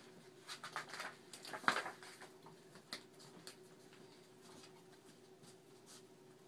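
Faint rustling and a scatter of light taps for the first few seconds, the loudest at almost two seconds in, then quiet room tone with a faint steady hum.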